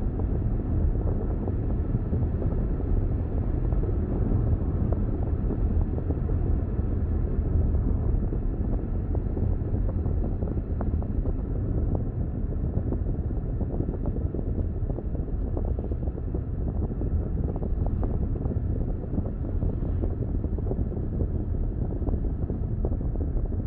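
Steady low rumble of a car on the move: tyre and road noise with engine sound.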